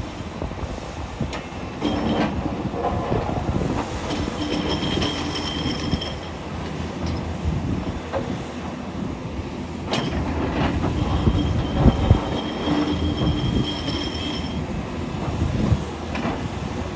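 SANY SY500H 50-ton excavator working in rock: its diesel engine running under load, with several sharp metallic clanks and two stretches of a high-pitched metallic squeal, one a few seconds in and another past the middle.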